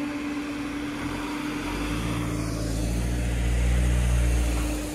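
Peugeot 308's engine running under load at steady revs, growing louder from about a second and a half in and dropping away near the end, over a steady hum.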